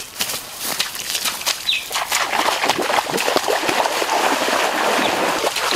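Footsteps swishing through tall grass, then from about two seconds in a person running through knee-deep water, splashing steadily.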